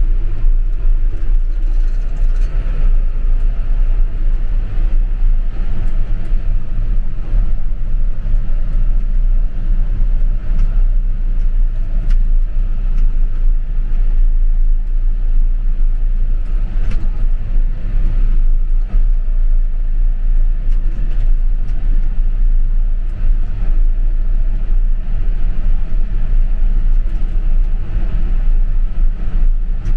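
A vehicle engine running steadily with a deep low rumble, with small rattles and ticks throughout.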